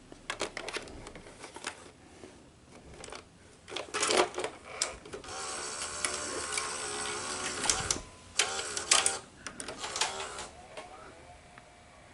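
ED Betamax video deck taking in a cassette and loading it: a series of clicks and clunks, then about three seconds of steady motor whirring as the tape is threaded, followed by another run of clicks as the mechanism settles.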